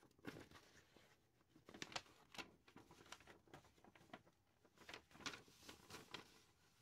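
Faint rustling and light ticks of a paper instruction sheet being handled and turned over.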